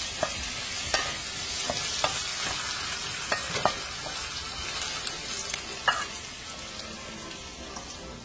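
Ripe plantain chunks and onions sizzling in oil in a stainless steel frying pan, stirred with a wooden spoon that clicks against the pan now and then. The stirring stops after about six seconds and the steady sizzle carries on.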